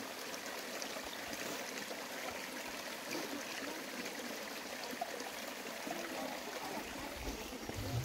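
Small rocky creek trickling and running over stones: a steady rush of shallow water.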